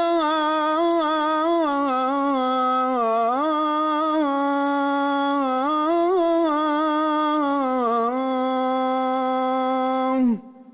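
A muezzin's solo voice chanting the Fajr call to prayer, drawing out the phrase 'hayya 'ala s-salah' in one long ornamented note. The pitch winds up and down for about ten seconds, then dips and stops near the end, leaving a fading echo.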